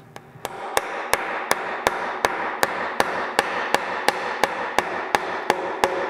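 Chisel being struck in a steady rhythm, about three blows a second, chopping out a mortise in a timber beam.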